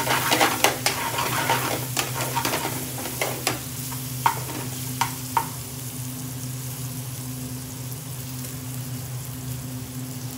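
Onions, peppers and spices frying in mustard oil in a metal frying pan, with a long metal spoon scraping and clinking against the pan as they are stirred during the first five seconds or so; after that a steady sizzle. A steady low hum runs underneath.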